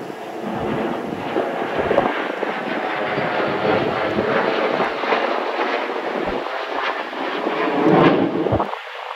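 Two Sukhoi twin-engine fighter jets flying past in formation, giving a loud rushing jet noise with a rough crackle that swells about eight seconds in.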